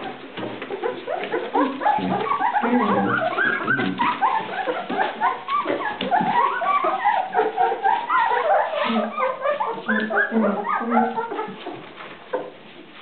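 A litter of two-week-old golden retriever puppies squeaking and whimpering, with many short high calls overlapping. The calls die down near the end.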